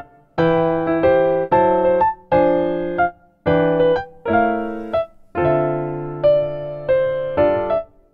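Background piano music: chords and a simple melody played in short phrases, each note fading, with brief pauses between phrases.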